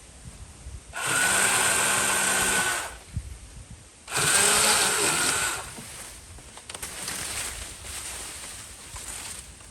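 Pole saw run in two short bursts of about two seconds and one and a half seconds, cutting into a fallen tree branch.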